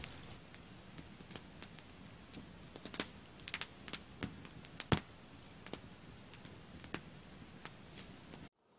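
Campfire crackling: irregular sharp snaps and pops over a faint hiss, the loudest snap about five seconds in. It stops abruptly near the end.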